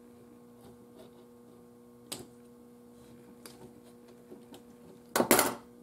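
Hands working capacitor leads and wiring inside a tube radio chassis: a few light clicks, then a louder crackling snap-and-rustle a little after five seconds in, over a steady electrical hum.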